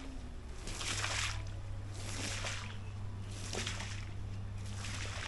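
Rubber squeegee dragged across a soaked wool rug, pushing water off it in repeated swishing strokes, about one a second. A steady low hum runs underneath and stops near the end.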